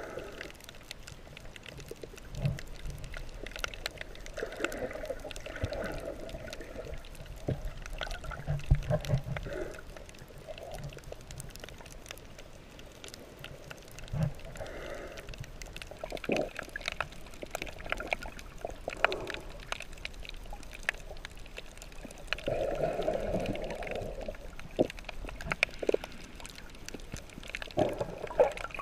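Underwater water noise heard through a camera held below the surface: muffled gurgling and sloshing, with many scattered small clicks and crackles. There are two or three louder bubbly gurgling spells.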